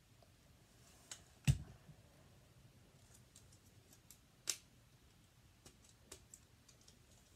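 LEGO pieces clicking and clacking as a TIE fighter's wing panel is handled, pulled off and pressed back into place: scattered light clicks, with a louder knock about a second and a half in and another sharp click about four and a half seconds in.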